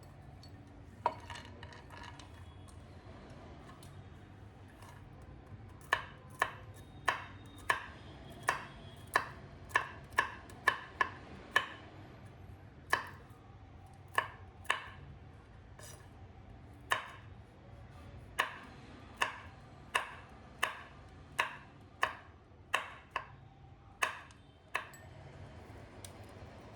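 Knife chopping on a cutting board: sharp single strokes at an uneven pace, about one to two a second, in runs with short pauses between.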